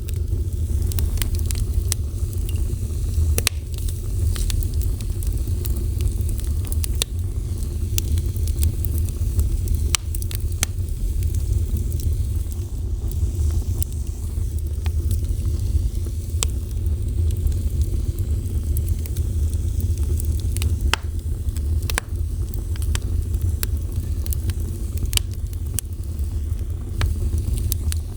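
Fire burning, with a steady low rumble and irregular sharp crackles and pops.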